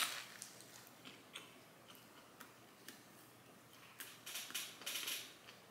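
A person chewing a mouthful of grilled chicken sandwich, faint: scattered soft mouth clicks, then a denser run of chewing sounds about four seconds in.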